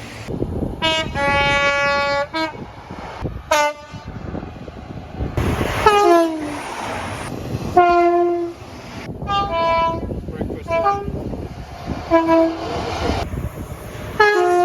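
Locomotive horns sounding in a quick series of cut-together clips: about seven chords, some long blasts and some short toots, a few dropping in pitch as the train passes.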